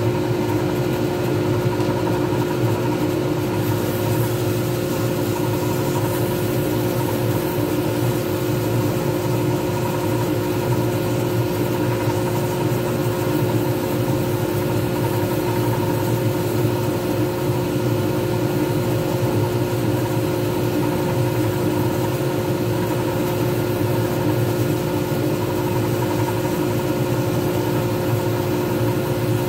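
Pen-turning lathe running steadily with a constant hum and whine, spinning a resin pen blank while abrasive sanding pads are held against it.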